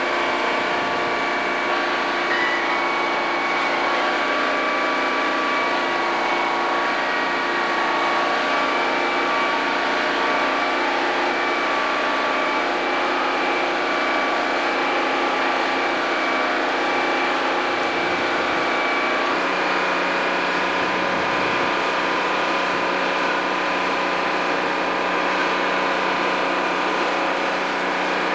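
Steady, loud engine noise with several steady whining tones over it; the sound shifts slightly about 19 seconds in.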